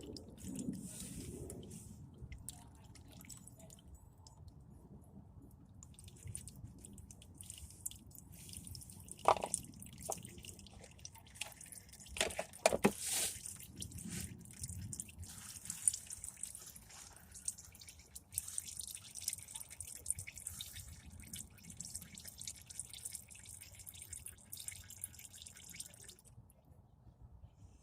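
Engine oil dripping into a drain pan in irregular drips, with a few louder sharp clinks about nine seconds in and again around twelve to thirteen seconds in.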